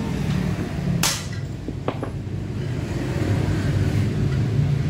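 Steady low background rumble. About a second in there is a short rasping scrape, and around two seconds in two light knocks, from a scooter's aluminium cylinder block being handled and turned over.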